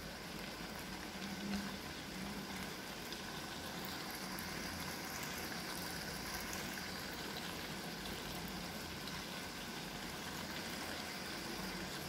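Spicy eggplant balado simmering in a wok, its chilli sauce bubbling with a steady, soft hiss as the dish finishes cooking.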